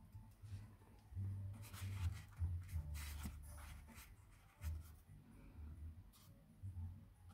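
Faint scraping and light clicks of small tools and parts being handled during smartphone repair, busiest between about one and a half and three and a half seconds in, over a low steady hum.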